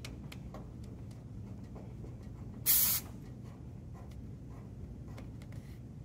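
A short, sharp hiss of refrigerant escaping, under half a second long about midway, as a gauge manifold's low-pressure hose fitting is screwed onto the suction line's service port. Faint clicks of the fitting being handled and a low steady hum run underneath.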